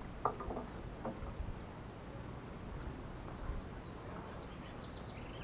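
Quiet outdoor ambience by a pond: a faint steady background with a few short, faint sounds in the first second or so and some brief high-pitched chirps near the end, typical of small birds.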